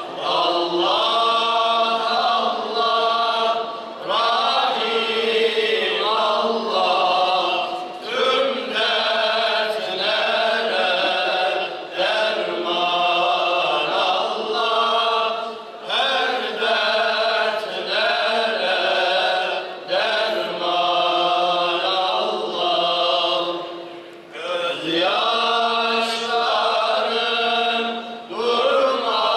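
Male ilahi group singing a Turkish Islamic hymn together through microphones, in long phrases with short breaths between them.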